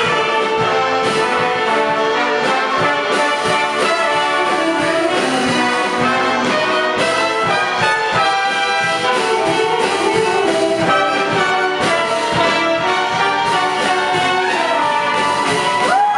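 Upbeat brass-led show music with a regular beat, played for a stage dance number.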